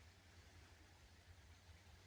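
Near silence: a faint low hum and hiss of background room tone.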